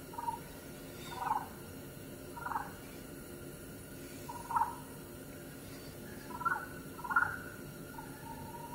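Faint, distant coyotes howling: a series of short calls a second or two apart, then a long held howl that begins near the end.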